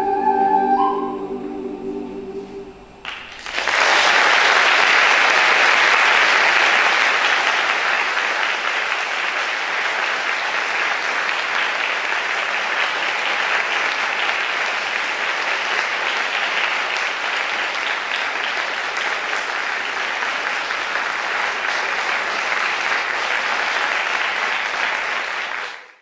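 A choir's final held chord fades away over the first three seconds. Then the audience breaks into applause, which goes on steadily for about twenty seconds before fading out at the very end.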